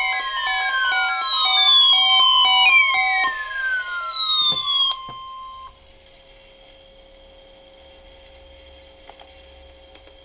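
Emergency Alert System test tones from several radio stations overlapping: electronic sweeps falling in pitch, repeating about every three seconds, over steady and on-off beeping tones, with a held tone near 1 kHz. The sweeps stop about five seconds in and the held tone soon after, leaving faint radio hum and hiss.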